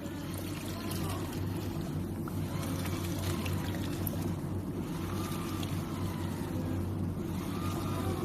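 Mini USB turbo washing machine running in water: a steady motor hum with water swishing and trickling.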